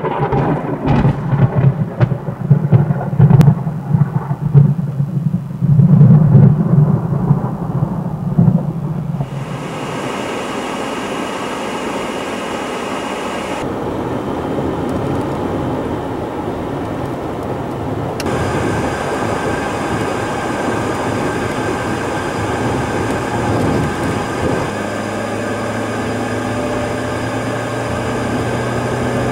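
Thunder rumbling with sharp cracks for about nine seconds, then a sudden change to the steady road and engine noise of a car driving, heard from inside the cabin, with a low engine hum coming in near the end.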